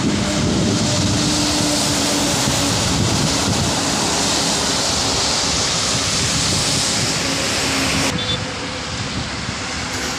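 Heavy trucks passing on a wet highway: a steady hiss of tyres through water on the road, with a faint hum of their engines underneath and wind on the microphone. The hiss drops a little about eight seconds in.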